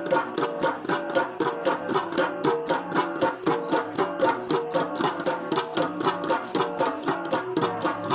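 Kalinga gangsa, a set of flat gongs, played together in a fast, even rhythm of about four to five strokes a second, with several ringing pitches interlocking.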